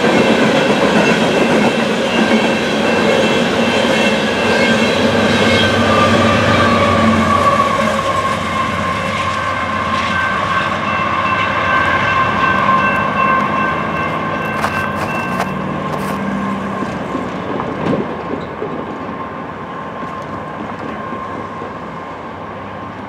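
Union Pacific coal train's hopper cars rolling past on the rails with a clickety-clack and a steady high wheel squeal. The sound fades over the last few seconds as the train moves away.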